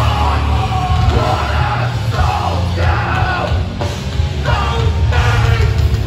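Hardcore band playing live and loud: distorted guitars, bass and pounding drums under a shouted lead vocal in short phrases, heard from inside the crowd.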